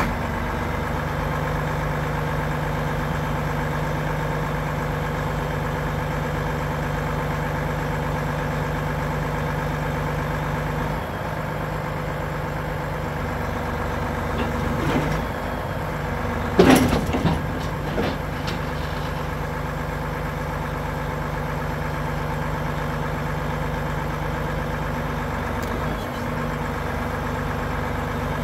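Volvo FM 13.500's 13-litre straight-six diesel running steadily while its truck-mounted hydraulic loader crane unfolds. A loud clank with a short ring sounds once a little past halfway, with smaller knocks just before and after it.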